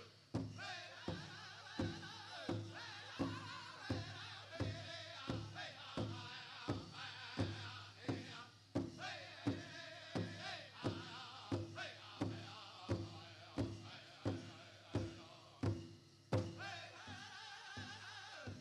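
Powwow drum group singing a chicken dance song in high, wavering voices over a big drum struck in a steady beat, about three beats every two seconds, with a brief break in the beat near the end.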